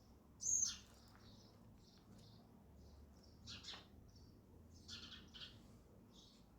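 House sparrows chirping: a string of short, separate chirps, the loudest a sharp falling chirp about half a second in.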